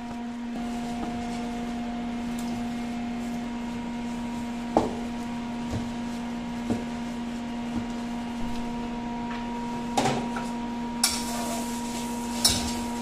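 Cleaver chopping through blanched pork belly onto a plastic cutting board, a few separate knocks spaced a second or more apart, over a steady machinery hum. Near the end a hissing, scraping noise starts at the sink.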